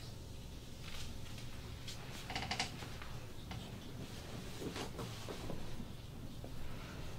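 Soft brushing and rubbing of hands working over a patient's back during a massage, with a brief squeak about two and a half seconds in.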